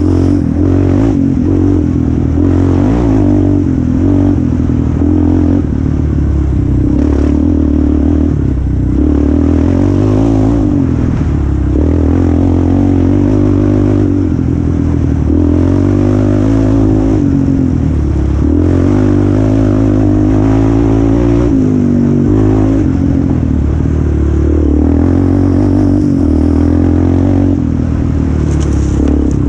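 A quad's (ATV's) engine running hard under racing throttle, its pitch rising and falling again and again as the throttle opens and closes, heard close up from the onboard camera.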